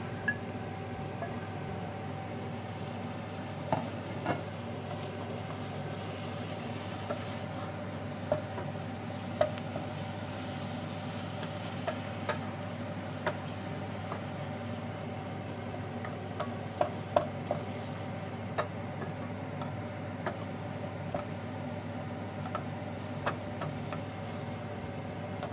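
Beef mince and onions sizzling as they brown in a stainless steel pot, stirred with a wooden spoon that clicks and knocks against the pot now and then, over a steady hum.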